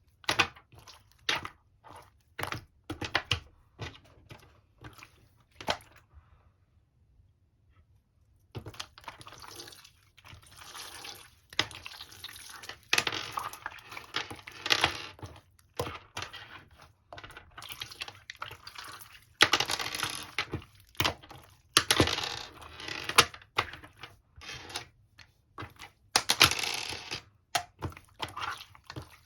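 Hand-played slime: quick sharp clicking pops for the first few seconds, then a pause of about two seconds, then longer wet squishing and crackling bursts as it is pressed and folded.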